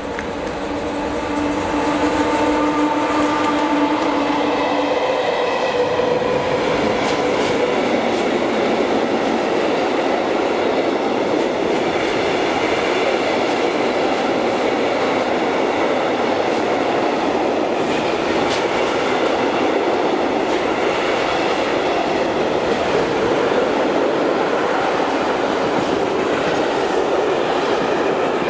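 Electric locomotive-hauled freight train of tank wagons passing through at speed: the locomotive's motor whine falls in pitch as it goes by in the first few seconds, then the steady rolling rumble of the wagons' wheels on the rails, with a few clicks over rail joints.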